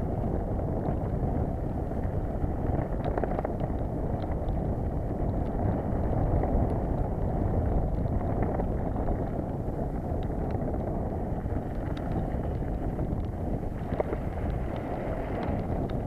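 Wind rushing over an action camera's microphone and mountain-bike tyres rolling on a loose dirt trail during a fast descent: a steady low rumble with occasional small clicks.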